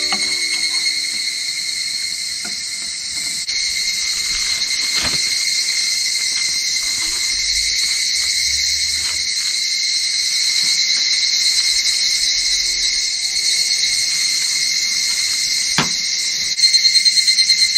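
Higurashi (evening cicadas) singing in a steady, high-pitched chorus. Near the end a louder call comes in, pulsing rapidly.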